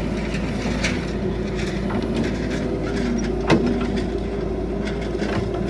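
Caterpillar 312 excavator's diesel engine running steadily, with one sharp knock about three and a half seconds in.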